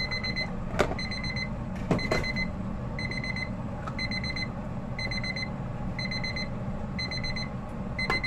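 Electronic alarm beeper going off in short bursts about once a second, each burst a high beep with faster pulses inside it, over a steady low hum. Two sharp knocks, about one and two seconds in, come from food going into a metal pan.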